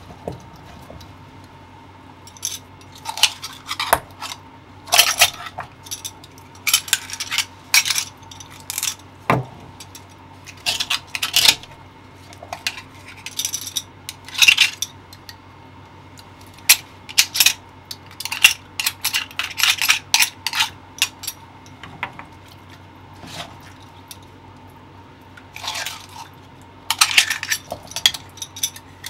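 A short metal clam knife scraping and clicking against the shells of mirugai (Japanese horse clams) as they are pried open and the meat is cut away, in irregular clusters of sharp scrapes and taps.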